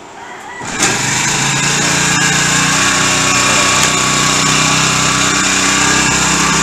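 Small gasoline outboard motor on a kayak comes up to speed abruptly about a second in, then runs loud and steady.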